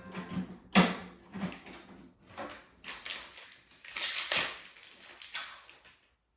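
Irregular clicks, knocks and rustling handling noises. The loudest is a sharp knock about a second in, and the sound cuts off abruptly about six seconds in.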